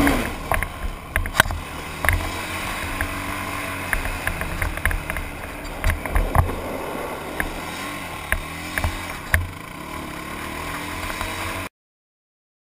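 ATV engine running under a rising and falling throttle, heard from on board the quad, with frequent sharp knocks and clatters over the rumble. The sound cuts off suddenly near the end.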